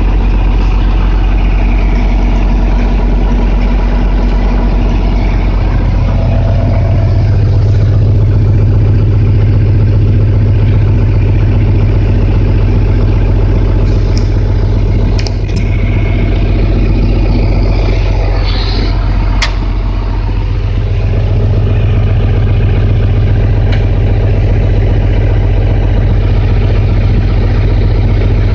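John Deere 4440 tractor's turbocharged six-cylinder diesel engine idling steadily, heard from inside the cab. A few clicks come about halfway through.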